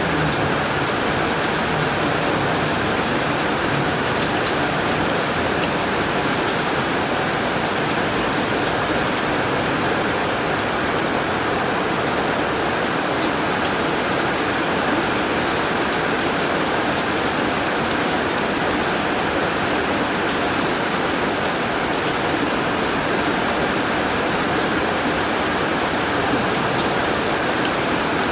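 Heavy rain falling steadily on a tin roof: a dense, even patter with individual drops ticking through it.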